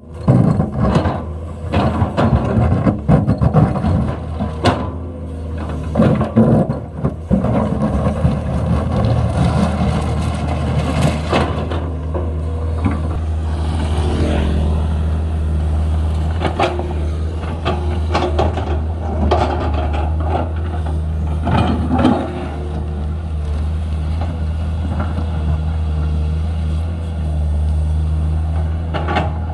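Komatsu PC210LC hydraulic excavator's diesel engine running steadily under load, with irregular clanks, knocks and scraping as the machine works. The clatter is busiest in the first dozen seconds and settles to occasional knocks after that.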